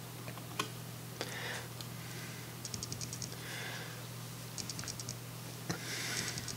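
Faint handling sounds of a gloved hand squeezing medium super glue from its bottle into a split wooden joint: a few light clicks and two short runs of rapid ticking, about three and five seconds in, over a steady low hum.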